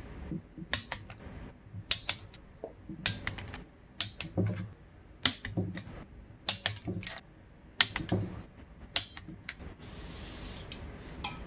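Torque wrench clicking on the cylinder nuts of a Honda CR85R two-stroke as they are tightened in steps toward 21 ft-lb: a string of sharp metallic clicks, often in close pairs, about one a second.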